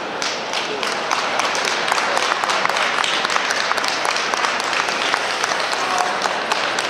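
Audience applauding, many hands clapping together, swelling up just after the start, with crowd voices underneath.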